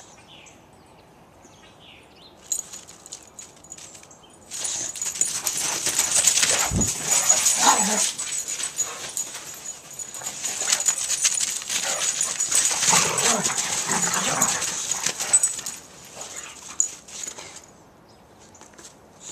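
Boxer dog vocalising in play, with short whines and growl-like sounds, over loud rustling and crackling noise from about four seconds in until about sixteen seconds.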